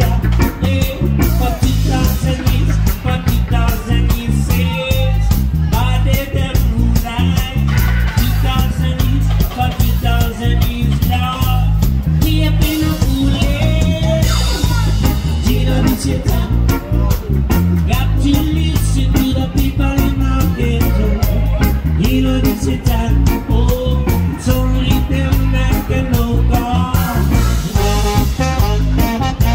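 Live band playing upbeat ska-flavoured reggae: electric guitar, bass and drums with a steady pulse, a lead singer, and saxophone and trombone.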